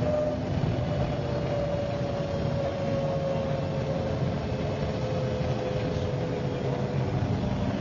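MCW Metrobus double-decker bus running: a steady low engine drone with a whine that slowly falls in pitch.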